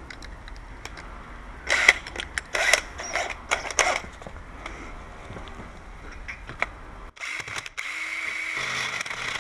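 Clicks and knocks of handling, then about seven seconds in a power drill starts and runs steadily, turning a spade bit to bore out the aluminium around the latch hole.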